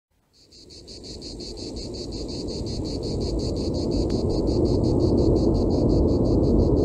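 Insect chirping in an even rhythm, about seven high pulses a second, over a low rushing noise, all growing louder over the first few seconds.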